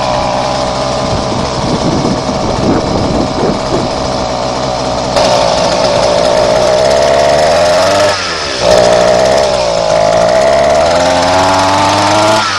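Small gas bike engine running with a buzzing note and being revved on the throttle: it gets louder about five seconds in, dips briefly about eight seconds in, then picks up again and climbs in pitch near the end.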